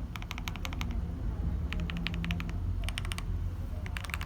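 Typing on a GK68 custom mechanical keyboard: quick runs of several keystrokes with short pauses between them.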